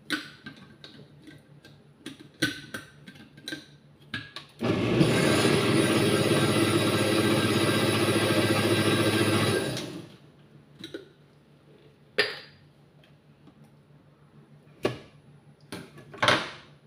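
Countertop blender motor running at speed for about five seconds while blending papaya, then cutting off, with knocks and clicks from the jar and lid being handled before and after.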